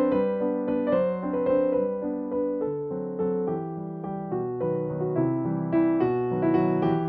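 Background music: a gentle piano-like keyboard tune, with single notes and chords struck about twice a second and left to ring.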